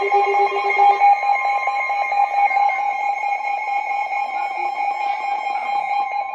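Emergency Alert System attention tone, a steady electronic alert tone. A lower tone in the signal drops out about a second in, leaving a single tone sounding.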